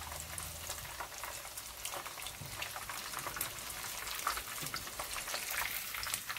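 Breadcrumbed chicken strips frying in plenty of hot oil in a pan: a steady sizzle with dense, fine crackling pops.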